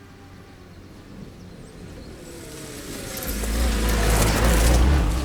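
Lada Niva engine running and growing steadily louder, its pitch rising, with a rushing hiss and heavy low rumble coming in over the second half.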